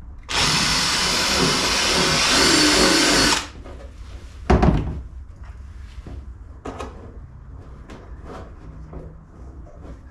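Cordless drill running for about three seconds as it bores a hole through the wall of a plastic diesel fuel tank for the fuel outlet nozzle. About a second after it stops there is a single thump, then light handling noises.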